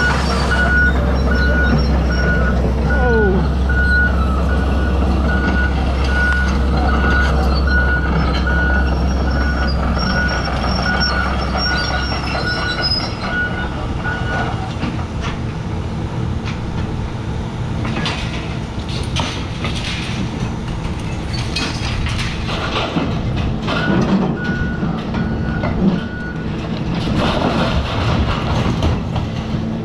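Heavy excavator's diesel engine running under load while a backup alarm beeps steadily for about the first half, then again briefly later. In the second half, repeated crunching and crashing of building debris as the excavator tears down the structure.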